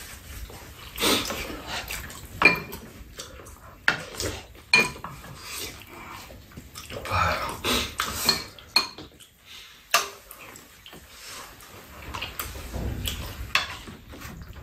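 Spoons and chopsticks clinking against bowls, a pan and a metal serving tray during a meal, in irregular sharp clicks with softer eating noises between them.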